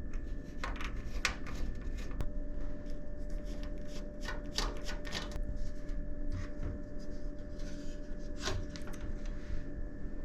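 Irregular rubbing and handling noises from hands working on computer parts: short scrapes and rustles at uneven intervals, over a faint steady hum.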